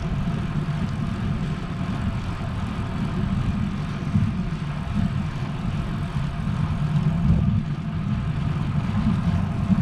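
Steady low rumble of wind buffeting the microphone of a camera mounted on a moving road bike.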